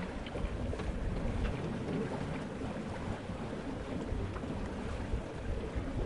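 Steady rush of water along a sailing boat's hull, with wind and occasional light splashes.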